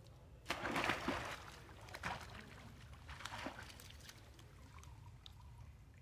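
A long-tailed macaque jumping into a pool of water, a loud splash about half a second in, then two smaller splashes about a second apart as it paddles, the sloshing dying away.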